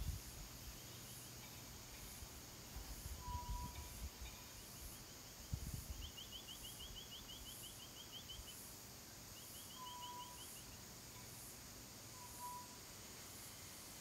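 Faint garden ambience: a steady high insect buzz that pulses evenly, with small birds calling in rapid trills and a few short single whistled notes. There are a few soft low bumps about three to six seconds in. The kookaburra is not calling.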